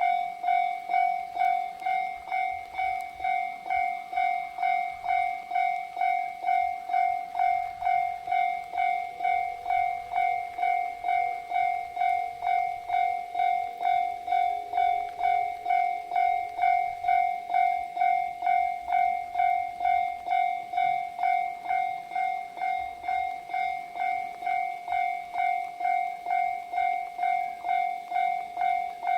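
Japanese railway level-crossing warning bell sounding its 'kan-kan' ring, one pitched note struck over and over in a steady, even rhythm.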